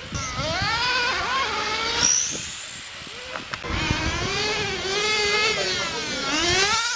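Whine of 1/10-scale electric RC touring cars' brushless motors as several cars lap the track. The pitch rises and falls as they accelerate, brake and pass, with one sharp falling sweep about two seconds in as a car goes by close.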